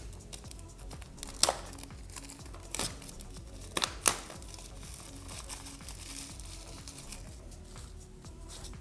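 Clear plastic shrink-wrap being peeled and crumpled off a small cardboard box, with several sharp crackles in the first half and quieter crinkling after.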